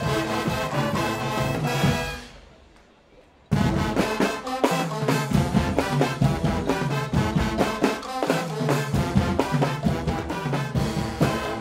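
Guggenmusik carnival band of trumpets, trombones, sousaphones and drum kit playing loud brass music. About two seconds in the band stops together and the sound rings out into a short pause, then the full band comes back in sharply with heavy drum hits about a second and a half later.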